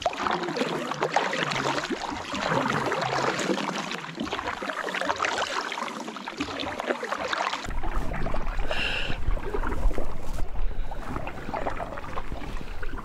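Double-bladed paddle strokes of a pack canoe: water splashing and dripping off the blades in a dense run of small splashes. About eight seconds in the splashing thins and wind rumbles on the microphone under it.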